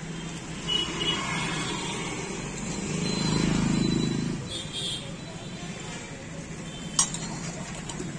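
Busy street background: traffic noise with faint voices, a low engine hum swelling for about a second and a half around three seconds in, and one sharp click near the end.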